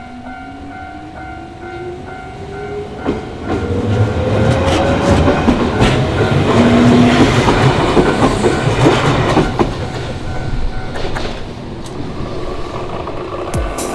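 Japanese level-crossing warning bell ringing in a steady pulse while an electric train passes. The train's motor whine rises in pitch as it picks up speed, and the wheels clatter over the rail joints, loudest about seven seconds in. The bell is heard clearly again near the end.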